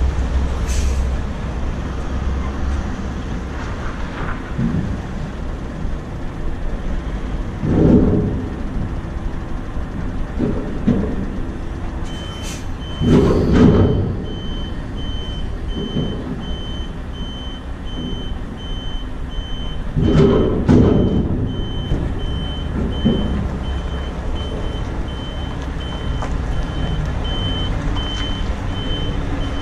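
Truck and drawbar trailer manoeuvring at low speed: diesel engine running, with a few louder bursts of engine noise and sharp air hisses. From about twelve seconds in, the truck's reversing alarm beeps steadily and evenly as it backs up.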